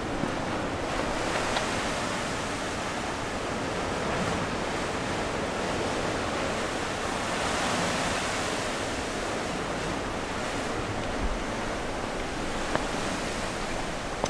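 Sea waves washing in a steady rush, swelling about four seconds in and again around the middle, with a couple of faint clicks.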